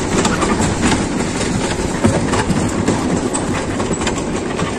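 Roller coaster train climbing a chain lift hill: a steady, loud rattling clatter from the track and lift chain.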